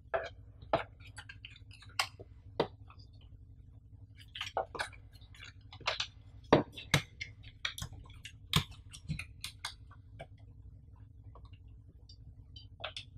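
Hands handling unboxing packaging on a table: a coiled USB cable being set down and a white cardboard box insert picked up and placed, giving an uneven series of light taps, clicks and rustles, with a few sharper knocks in the middle.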